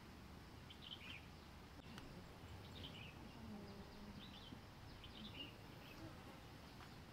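Near silence with faint outdoor ambience: a flying insect buzzing faintly in the middle, and short faint high chirps every second or so.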